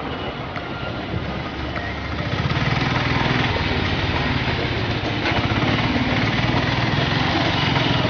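Yamaha R15 V2's single-cylinder four-stroke engine running while the bike rides in slow traffic, with road and wind noise. The engine gets louder about two and a half seconds in.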